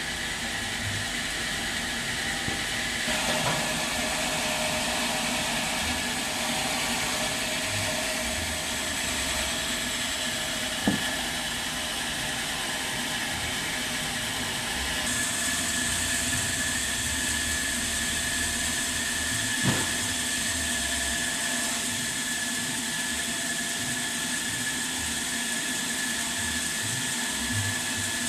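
Sawmill machinery running steadily: a constant mechanical hum and hiss with a high steady whine, broken by two sharp knocks, one about a third of the way through and one about two-thirds through.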